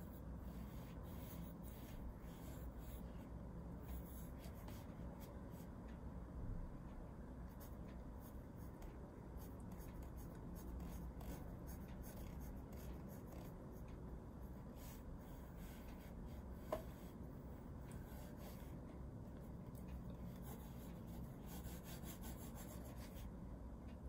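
Wooden graphite pencil scratching on paper in short, irregular strokes, faint. A single short click about two-thirds of the way through.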